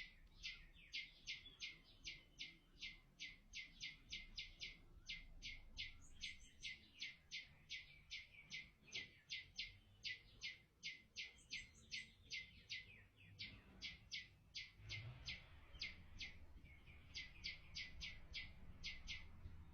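A small bird chirping over and over, short high chirps at about three a second, faint, with a brief pause about two-thirds of the way through.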